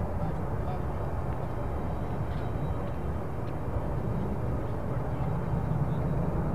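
Distant military jet engines running, a steady low rumble that grows slightly louder near the end.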